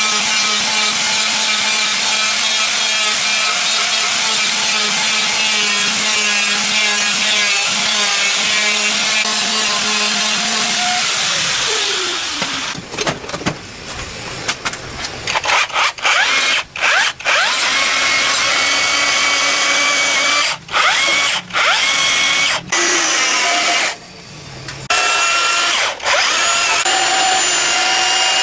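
An electric power tool running steadily with a hissing, grinding noise. About eleven seconds in its pitch falls as it slows, and after that it cuts in and out several times with short gaps.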